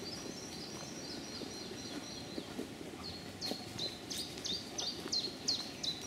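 A songbird singing: a quick twittering run of high notes, then from about halfway a string of short down-slurred notes repeated about three times a second. Footsteps rustle on the forest floor underneath.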